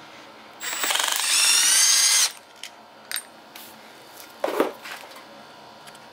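Milwaukee cordless impact driver backing out a clutch-cover screw on a vintage Honda mini engine: a burst of about a second and a half, its motor whine rising in pitch over a rapid hammering. A short metallic clatter follows about four and a half seconds in.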